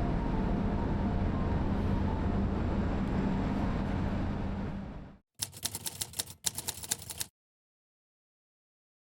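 A steady low engine drone with a hum, fading out about five seconds in. Then a rapid run of sharp clicks in two short bursts lasting about two seconds, followed by dead silence.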